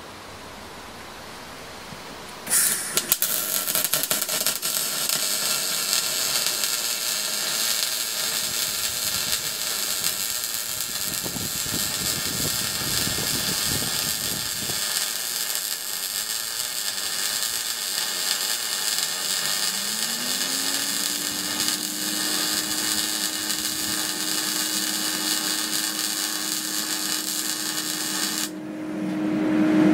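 MIG welding arc from a Parweld XTM 221Di inverter laying a fillet weld on steel with 1 mm wire under mixed shielding gas: a steady loud hiss that strikes up about two and a half seconds in and cuts off sharply just before the end.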